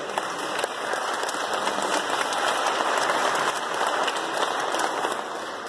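Audience applauding: the clapping swells at the start, holds for a few seconds and dies away near the end.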